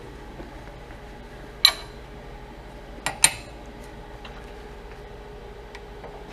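Sharp metallic clanks of steel pieces being handled on a metal surface: one about a second and a half in, then two close together about three seconds in, each ringing briefly, over a steady faint hum.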